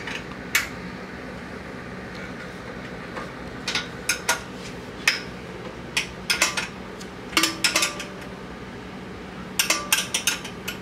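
Metal hand tools clinking and tapping against a Predator 212 engine as a wrench works its fittings: scattered sharp metallic clicks, some in quick clusters, over a low steady hum.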